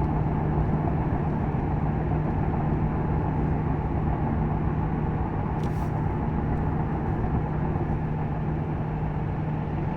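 Steady in-cabin drone of a 2001 Ford Crown Victoria cruising up a long mountain grade: its 4.6-litre V8 engine holds a constant hum under road and tyre noise.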